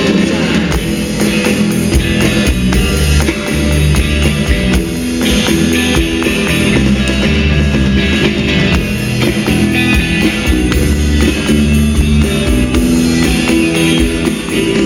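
Band music with strummed guitar, drum kit and tambourine playing a steady beat.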